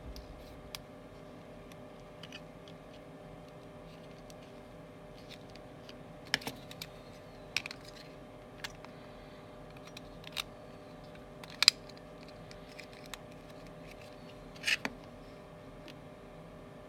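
Scattered sharp clicks and taps of an iPhone LCD panel and a plastic razor-blade holder being handled and set down on a steel bench and aluminium jig, over a faint steady hum. The loudest tap comes about two thirds of the way in, with a quick double tap near the end.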